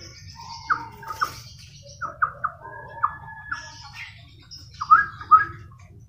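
Albino yellow-vented bulbul (trucukan) singing: short groups of quick, rising whistled notes, the loudest pair about five seconds in, over a low steady background rumble.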